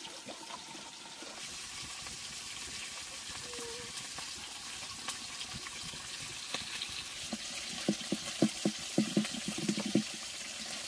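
Running water, a steady hiss, with a quick run of knocks and clatters over the last few seconds.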